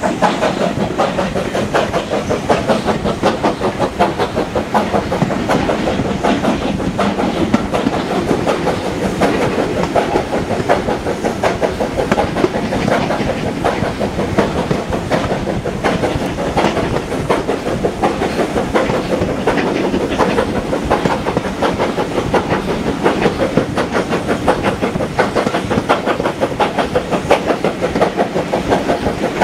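A steam-hauled passenger train running, heard from an open carriage window: a steady, rapid clatter of wheels over the rails.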